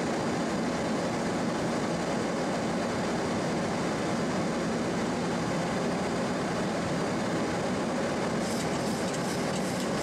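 Steady rush of airflow and cabin air noise on the flight deck of a Boeing 737-800 during its descent.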